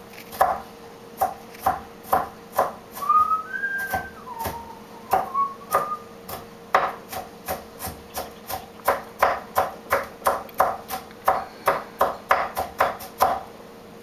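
Rhythmic knocking, about three sharp strikes a second, steady throughout, with a few short rising whistled chirps about three to six seconds in.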